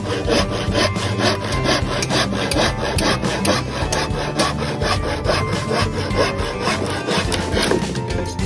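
Handsaw cutting through wood with quick, regular back-and-forth strokes, about four or five a second.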